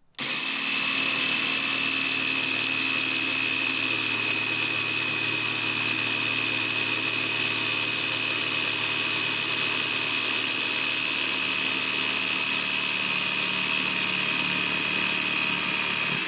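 Black & Decker 20V cordless jigsaw (BDCJS20B) running steadily while cutting through pressed board, a high motor whine over the blade's noise. It starts just at the beginning and stops abruptly at the end.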